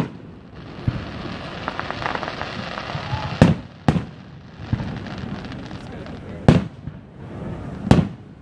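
Aerial fireworks bursting: four sharp booms, two close together about three and a half seconds in and two more near the end. A crackling hiss runs through the first few seconds.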